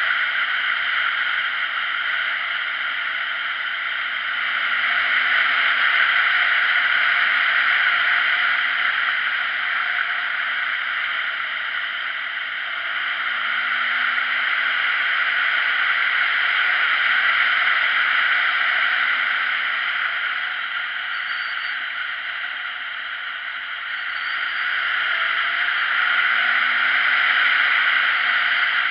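Heavy wind rush on a camera's microphone aboard a moving motorcycle, swelling and easing with speed. Under it, the motorcycle's engine is faintly heard rising in pitch as it accelerates, about three times.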